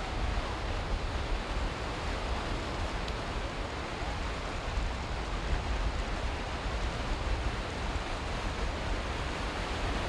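Small waves washing up a shallow sandy beach, a steady surf hiss, with a low wind rumble on the microphone underneath.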